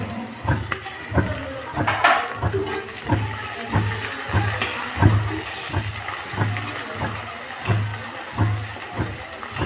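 Chepa shutki (fermented dried fish) and onions frying in hot oil in a wok, with a steady sizzle. A regular low knock sounds about every two-thirds of a second.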